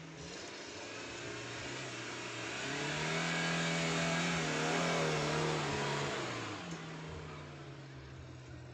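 Small 4x4's engine revving as it spins doughnuts in loose sand: the engine note climbs about three seconds in, holds high and loudest as the vehicle swings close, then drops back about six seconds in, over a steady rush of noise from the tyres churning sand.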